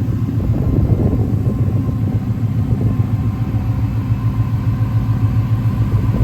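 Supercharged V8 engine running steadily at idle, a deep even rumble that swells slightly about a second in.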